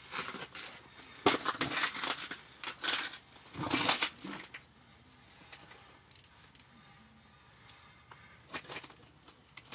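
A run of crunching and knocking handling noises over the first four and a half seconds, then a couple of faint clicks near the end.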